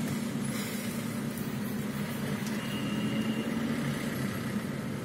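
Steady low hum of a car engine and slow-moving traffic, heard from inside the car's cabin.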